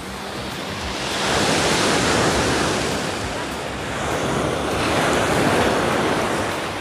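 Sea waves washing in on the shore, swelling twice, with wind buffeting the microphone.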